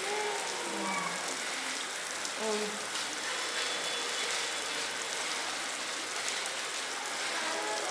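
Scattered chatter from a crowd of onlookers over a steady hiss, with brief voices near the start, about two and a half seconds in, and near the end.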